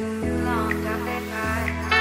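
Background music: held chords that change twice, with a short chime-like note about once a second.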